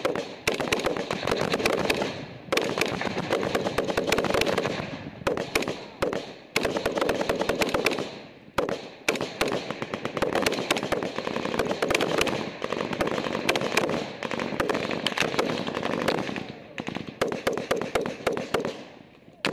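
Close, sustained rifle and automatic-weapon fire: dense, rapid strings of shots broken by short pauses every few seconds, dying away at the end.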